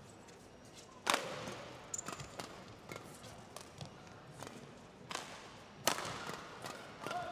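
Badminton rackets striking the shuttlecock during a fast doubles rally: a run of sharp cracking hits, the loudest about a second in and just before six seconds, with quieter footfalls on the court between them.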